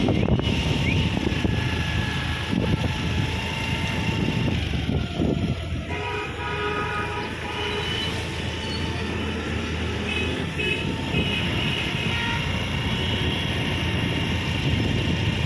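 Ride on a motor scooter: steady rumble of the engine and wind on the microphone, with drawn-out horn tones sounding over it for a few seconds at a time.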